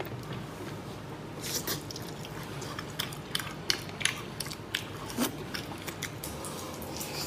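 Close-up biting and chewing on pork rib cartilage: a run of sharp, irregular crunches starting about a second and a half in.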